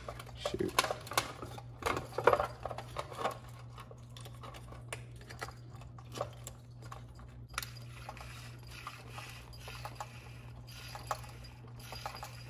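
Small clicks and clatters of plastic parts and wires being handled as the head motor is fitted back into a Big Mouth Billy Bass singing fish. The clicks are busiest in the first few seconds and sparse after that, over a steady low hum.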